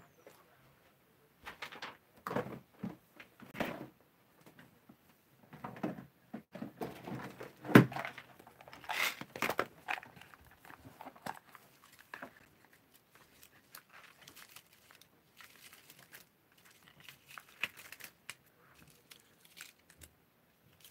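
Clear plastic storage cases and plastic sheets of enamel-dot embellishments being handled and sorted: scattered clicks, knocks and crinkly rustles, the loudest a knock about eight seconds in.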